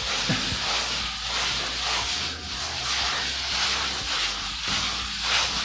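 A plastic plastering tool scraping and rubbing over wet repair mortar on a wall in repeated strokes, smoothing the coat thin.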